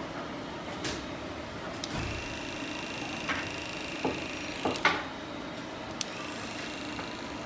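Electric dog clipper buzzing steadily as it is run through a dog's coat, with a few short sharp clicks.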